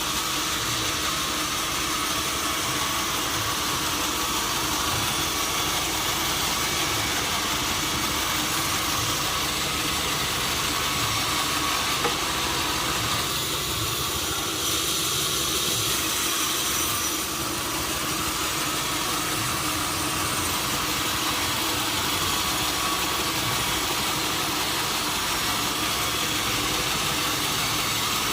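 Sawmill machinery running steadily: a constant motor hum and hiss with a few steady tones, brightening for a few seconds about halfway through.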